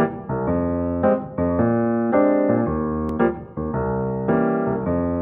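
Background music of piano chords, each held for about half a second to a second before the next.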